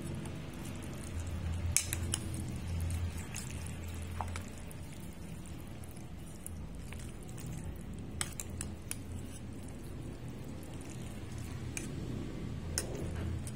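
A few light clinks of a utensil against a dish, over a low steady hum.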